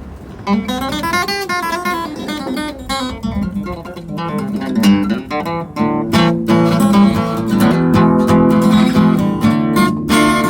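Guitar improvising in A minor: a run of single notes climbing and falling, then strummed chords from about halfway through.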